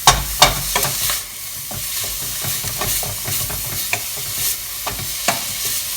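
Chopped onion, pepper and mushrooms sizzling as they soften in a frying pan, with the sharp clicks and scrapes of a utensil stirring them, the strongest clicks in the first second.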